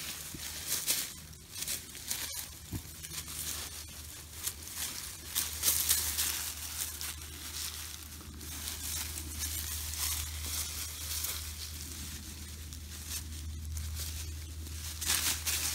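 Young wild boars rooting with their snouts in dry leaf litter and soil: irregular rustling and crunching.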